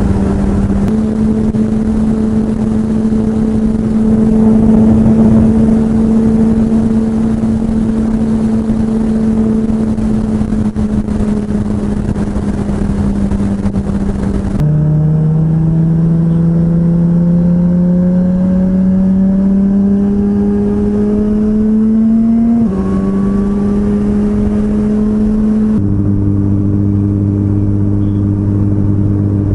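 Suzuki GSX-R1000R's inline-four engine running at steady highway speed, then pulling up through the revs in one gear about halfway through, with wind rush. The engine note jumps abruptly a few times where the footage is cut.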